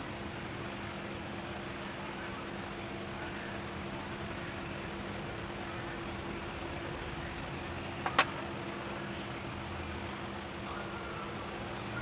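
Steady low machine-like hum over a background of noise, broken once about eight seconds in by a single sharp click.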